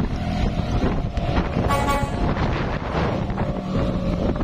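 Sound effect of a heavy truck engine running, with a short horn toot about two seconds in.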